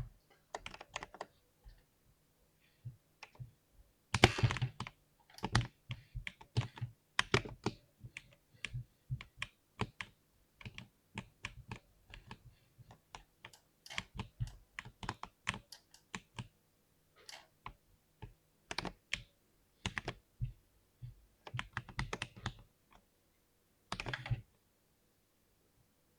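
Typing on a 60% keyboard: sharp keystroke clicks in irregular bursts with short pauses, a dense, loud flurry about four seconds in. The typing stops a couple of seconds before the end.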